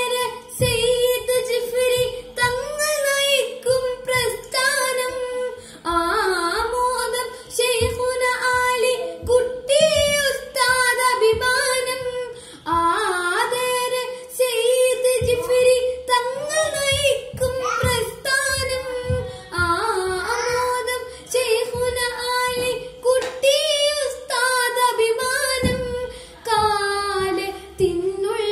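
A boy singing a Malayalam song solo, a melodic line with ornamented turns, sung in short phrases with brief breaks between them.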